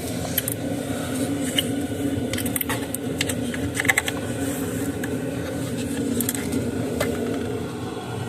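Scattered clicks and taps of the intake being worked loose and lifted off a Chevy Traverse V6 engine, with a cluster of clicks a few seconds in, over a steady low hum.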